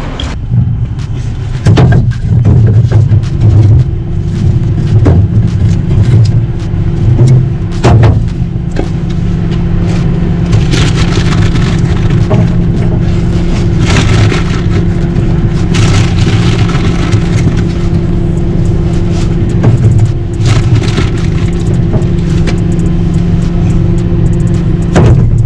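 Split firewood knocked and scraped into a smoker's firebox: a string of irregular wooden knocks spread through, over a steady low hum and rumble.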